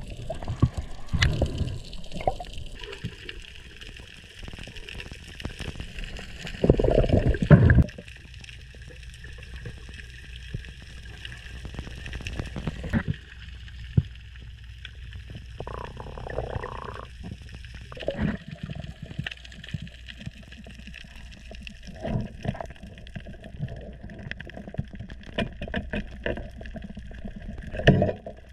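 Underwater ambience picked up by a camera below the surface: muffled water movement with gurgling and many scattered small clicks, over a steady low rumble. A louder rush of water noise comes about seven seconds in, and another near the end.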